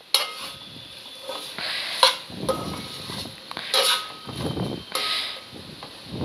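Metal spoon stirring vegetables in a metal pot: scraping against the pot's side and bottom, with several sharp knocks on the rim that leave the pot briefly ringing.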